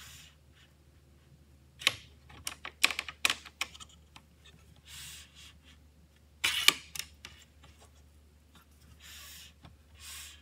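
Hard clicks and knocks of a plunge router and its guide-rail fittings being handled and shifted along an aluminium guide rail: a quick run of clicks about two seconds in and a louder clatter a little past the middle. The router's motor is not running.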